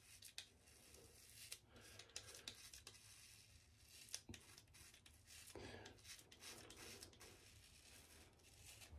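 Faint strokes of a GilletteLabs Heated Razor's cartridge blades cutting through four-day stubble, each stroke a quick run of small clicks, coming irregularly.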